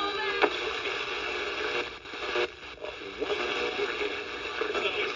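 FM radio being tuned across the band: a steady hiss of static between stations, with brief snatches of broadcast audio, and the noise dips for a moment about two seconds in.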